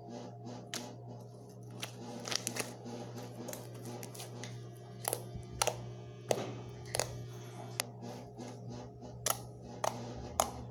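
Quiet background music with a steady low hum under it, broken by scattered sharp clicks and taps.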